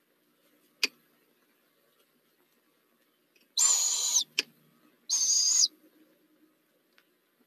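Barred owl owlets giving two harsh, hissing begging screeches, each over half a second long and about a second apart, with a sharp click just before them.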